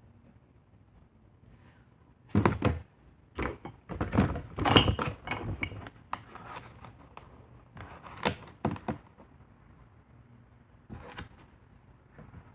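A series of irregular knocks and clunks, bunched together from about two seconds in until about nine seconds, then one more near the end, over a faint steady low hum.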